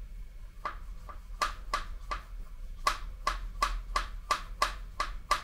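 Sharp clicking from a part being worked by hand inside a side opening of a Volvo D67C diesel engine block. The clicks start under a second in, pause briefly about two seconds in, then run at a steady pace of about three a second.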